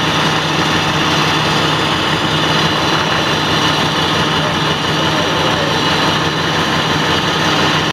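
Large diesel engine of a parked fire engine idling, a steady hum with one constant low tone. Faint voices sit under it.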